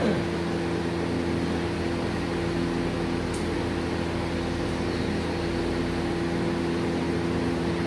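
Steady machine hum: a low, even drone with several held tones that does not change.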